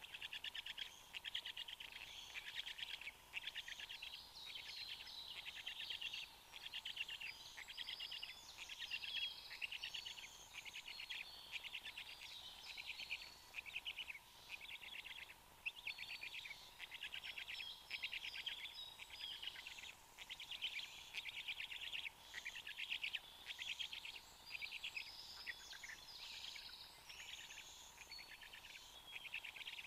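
Several songbirds singing at once, song phrases following one another without pause, with a faint steady electrical tone under them.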